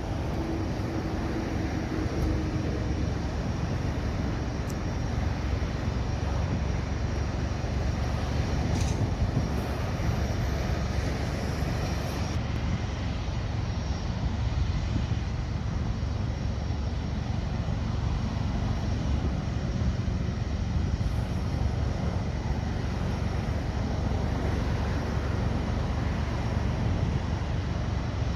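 Boeing 777-300ER's twin GE90-115B turbofan jet engines running, heard as a steady, dense rumble heavy in the low end.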